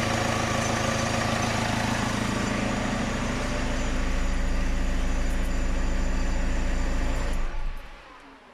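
Diesel car engine idling steadily on its first run after a cylinder-head rebuild and engine swap, then stopping abruptly about seven and a half seconds in.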